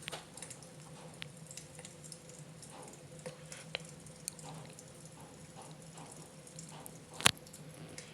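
Wood fire crackling in a fireplace: scattered small pops and ticks, with one loud snap about seven seconds in, over a faint steady hum.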